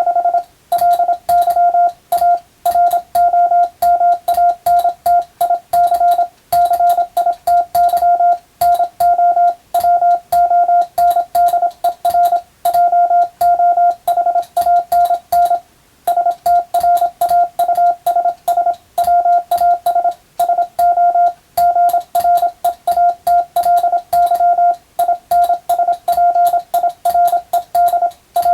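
Morse code (CW) being hand-sent on a telegraph key and heard as a sidetone, a single mid-pitched beep keyed rapidly into dots and dashes with clicks at the keying. It is radiotelegraph sending practice of English-text telegram messages.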